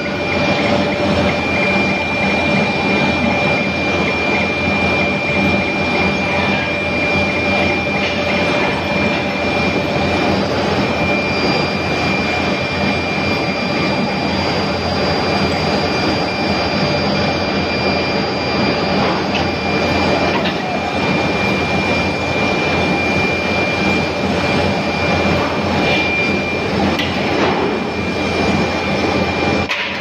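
Steady, loud noise of an induction furnace pouring molten SG iron into a ladle, with a constant high whine and a low hum running through it.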